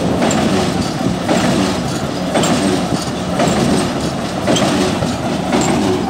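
Water-well drilling rig running and drilling: loud steady mechanical noise with a regular knock about once a second.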